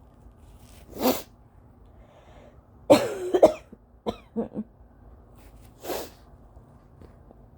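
Dry allergy coughing fit: a single cough about a second in, a louder run of coughs around three seconds followed by three quick short coughs, and another single cough near the end.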